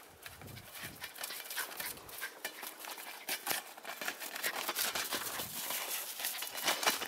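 Footsteps crunching in dry, frozen snow: a rapid, irregular run of crisp crunches that grows louder after the first couple of seconds.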